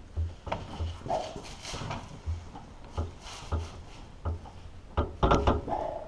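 Hands pushing and twisting a plastic air filter housing cover on a skid steer engine, trying to seat it over a new filter whose stiff rubber seal keeps pushing it back out. It makes irregular knocks, rubbing and scraping, with a cluster of louder clacks about five seconds in.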